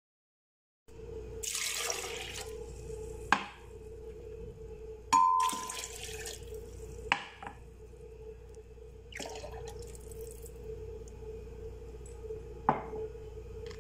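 Liquid poured into a glass blender jar in a few short pours, with sharp knocks and clinks of containers against the glass and the counter about four times, over a steady low hum.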